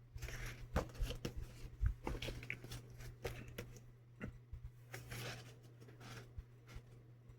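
Paper handling: the pages of a paperback manga volume rustling and being flipped, with scattered light clicks and taps from the book being handled.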